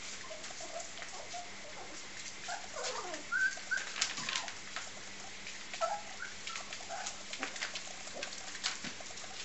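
Five-week-old English springer spaniel puppies giving small scattered squeaks and whimpers, one sliding down in pitch, the loudest about halfway through. Throughout are short clicks and scuffs of paws on newspaper and floor tiles.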